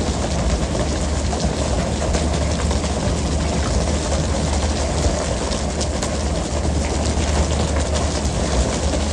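A fishing boat's engine runs steadily under a constant rush of sea water, with scattered light clatter as tuna land on the deck.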